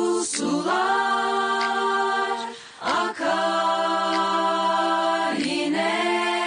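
Women's voices singing together unaccompanied, holding long steady notes of about two seconds each, with short breaks for breath between them.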